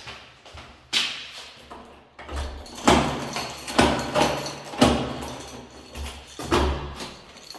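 A series of sharp knocks and thumps, roughly one a second, some with a short ringing tail.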